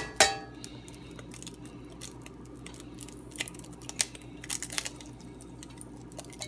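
An egg tapped sharply on the rim of a 10-inch Lodge cast-iron skillet, then frying in hot melted butter: small, irregular crackles and pops, thickest around the middle.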